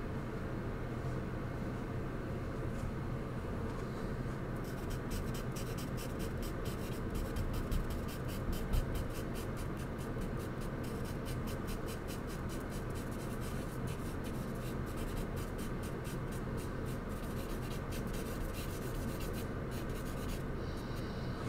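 Charcoal scratching on paper in quick, repeated strokes as a portrait's face is shaded. The strokes start about five seconds in and stop shortly before the end, over a steady low background hum.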